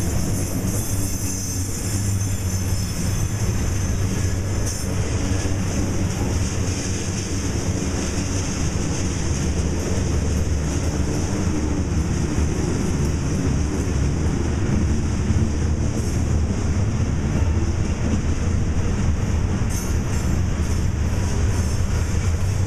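Covered hopper cars of a Norfolk Southern freight train rolling past close by: a steady low rumble of steel wheels on rail.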